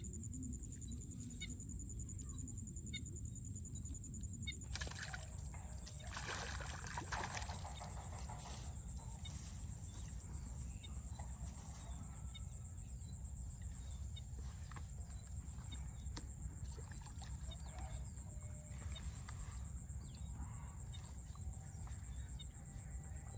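Outdoor insect chorus: a steady high-pitched drone over a low rumble, with a few brief bird calls.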